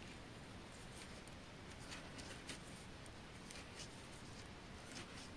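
Faint, irregular clicks and light rustling of 3 mm circular knitting needles and yarn as a row of knit stitches is worked, over a low steady hiss.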